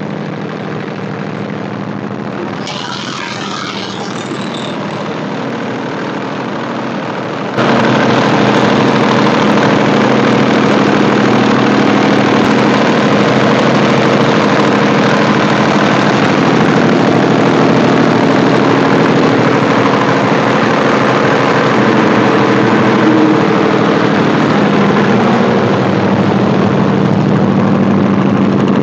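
Cummins diesel engine of a 30 kVA silent generator set running at a steady speed. About seven and a half seconds in it abruptly gets louder and stays that way.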